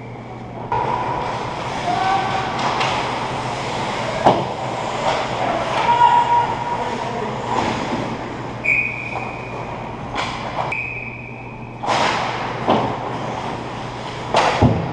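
Ice hockey play around the goal: skate blades scraping and carving the ice, with sticks and puck clacking. Several sharp knocks and a few short high squeals stand out over a steady low hum.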